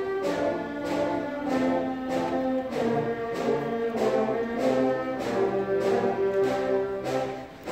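Live school concert band playing processional music: sustained brass-led chords over a steady beat of about two pulses a second. The music dips briefly near the end.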